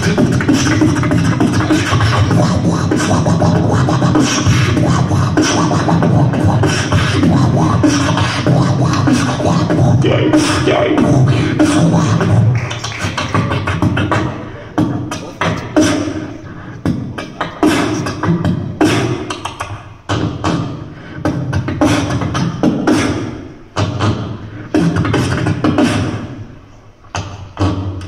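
Beatboxing amplified through a handheld microphone: a dense, continuous beat for about the first half, then sparser, choppier hits broken by short pauses.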